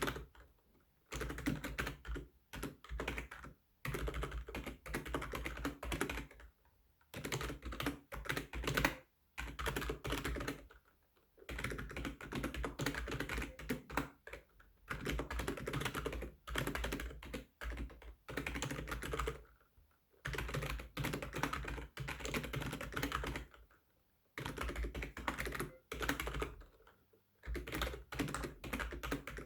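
Fast typing on a computer keyboard: rapid keystroke clicks in bursts of one to three seconds, broken by short pauses of under a second, during a timed typing-test run.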